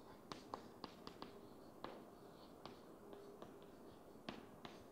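Chalk tapping on a chalkboard as a word is handwritten: about a dozen faint, sharp, irregular taps.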